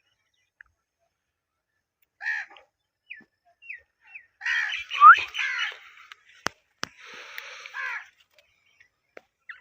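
Ringneck parakeet calling and chattering. A single squawk is followed by a few short rising chirps, then a loud, busy babble with a sharp rising whistle in the middle. After two sharp clicks comes a raspy, scratchy stretch.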